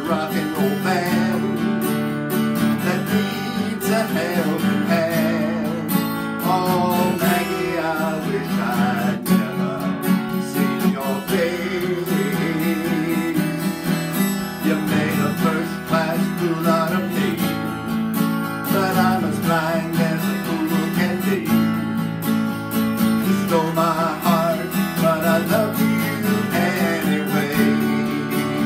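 Acoustic guitar strummed steadily, chords changing, in an instrumental passage without singing.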